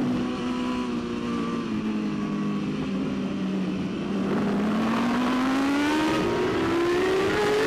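Onboard superbike inline-four engine: the revs fall off for about four seconds, then climb steadily and grow louder under hard acceleration.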